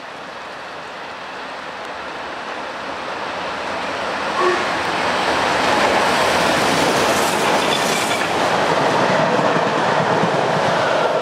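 Two LMS Black 5 4-6-0 steam locomotives hauling a train at speed, growing steadily louder as they come up and pass. The coaches' wheels then run by on the rails.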